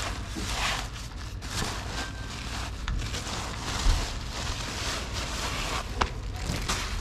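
Cat crunching dry kibble from a plastic bowl, an irregular crackling, over a steady low rumble, with a couple of sharp clicks near the end.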